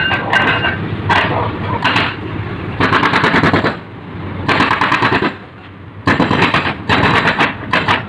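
Excavator-mounted hydraulic breaker hammering road pavement in repeated bursts of rapid blows, each burst up to about a second long with short pauses between. A low engine rumble runs underneath.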